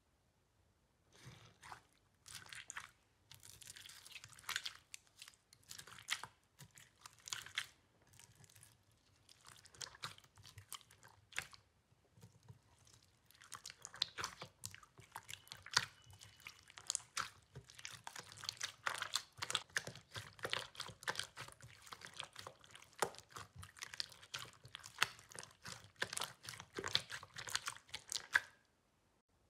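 Hands squeezing and kneading clear pink slime full of small beads: a faint crackling crunch made of many tiny clicks, coming in irregular bursts with short pauses and stopping about a second before the end.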